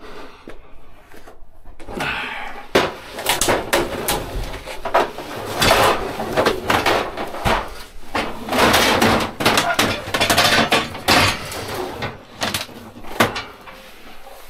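Scrap metal shelving clattering, banging and scraping as it is handled and loaded, a busy run of knocks and rattles with sharp bangs about three seconds in and near the end.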